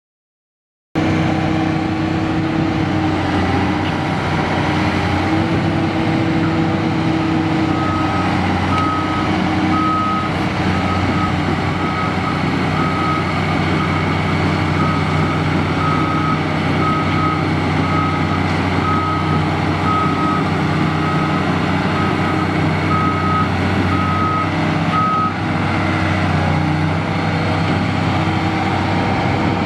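The 1999 Komatsu PC400LC-6LK excavator's SA6D125E-2 six-cylinder turbo diesel runs steadily, starting about a second in. Its motion warning alarm beeps about once a second for roughly seventeen seconds while the machine moves, then stops.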